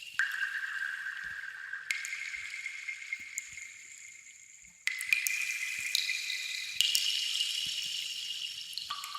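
Water drops falling, a few sudden drips each setting off a ringing high tone that fades over a second or more, with small faint ticks of other drops in between.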